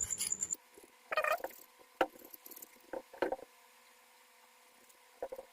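A blade scraping the insulation off a ceiling fan's winding lead wire in quick strokes, stopping about half a second in. After that come a few scattered light clicks and rustles as the wires and blade are handled.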